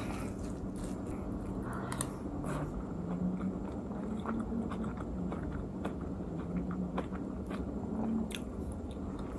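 A person eating: a metal spoon stirring and scooping in a plastic food container, then quiet chewing of soft rehydrated rice and lentils, with faint scattered clicks of the spoon.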